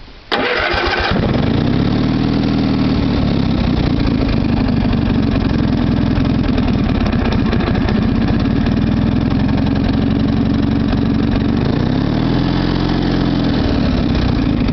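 A riding mower's 18 hp Kohler Magnum twin-cylinder, vertical-shaft engine is cranked by the starter and catches about a second in. It then runs steadily and well, revving up and settling back twice.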